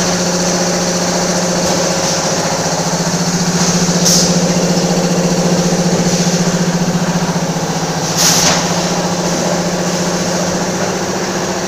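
Tubular-film form-fill-seal bagging machine running: a steady low drone and mechanical hum, with two short hisses about four seconds apart.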